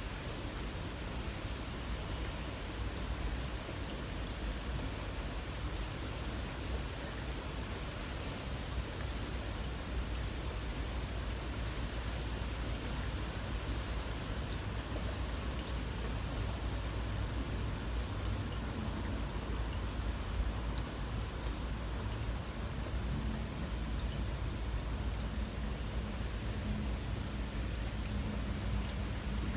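Insects trilling steadily at one high pitch, with a faint even hiss of light rain and a steady low rumble underneath.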